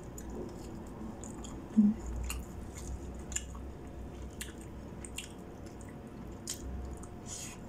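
Close-up chewing and wet mouth sounds of someone eating adobo and rice by hand, with scattered small smacks and clicks. A brief low thump comes about two seconds in.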